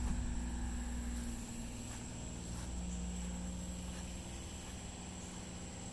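An engine running steadily at low speed, a low hum whose pitch shifts a little about a second and a half in. A thin, steady high-pitched whine runs over it.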